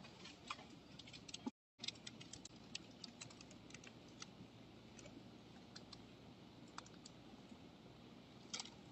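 Faint, scattered light clicks and taps from hands handling things close to the phone's microphone, with the audio cutting out briefly about one and a half seconds in.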